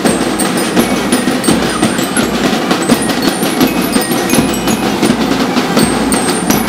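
Parade music from a marching band: percussion with many short, high, ringing metallic strikes over constant crowd and street noise.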